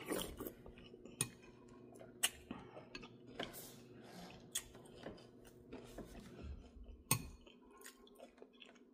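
Metal spoon clinking against a glass bowl of soup, with sipping and chewing between spoonfuls. Several sharp clinks are scattered through it, over a low hum.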